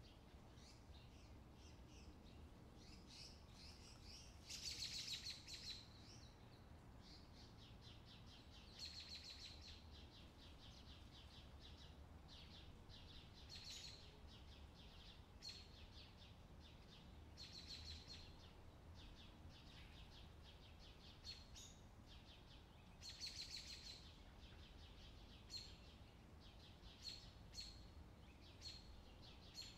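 Faint scratching of a pencil on paper, in short bursts of quick back-and-forth strokes with single brief strokes in between.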